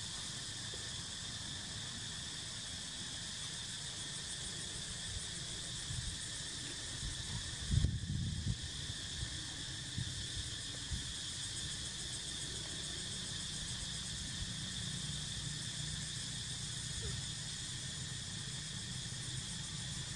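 Steady, shrill chorus of insects, even throughout. About eight seconds in, a brief low thump and rumble stands out above it.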